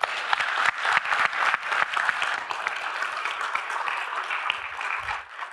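Audience applauding: many hands clapping in a dense patter that starts abruptly and tails off near the end.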